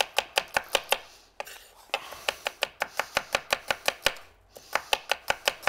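Knife thinly slicing shallots on a wooden cutting board: quick runs of sharp taps as the blade meets the board, several a second, broken by two brief pauses.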